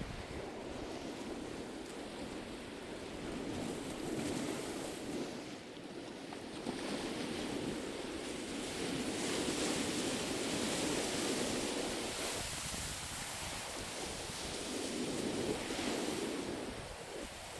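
Sea waves washing onto the shore, their rush swelling and easing, with wind blowing across the beach.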